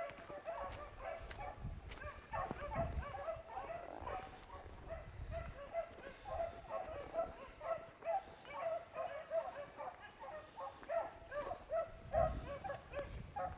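A pack of beagles baying as they run a rabbit's track: many short overlapping bays in quick succession.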